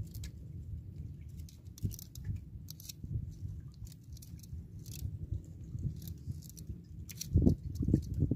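Nylon handline and its bamboo spool being handled: small scattered clicks and scrapes over a low, uneven rumble, with two louder low thumps near the end.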